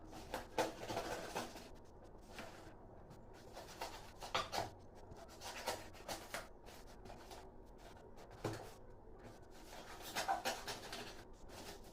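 Packaging being handled as a head torch is unboxed: intermittent rustles and small clicks, with louder rustling spells about a second in, midway, and near the end.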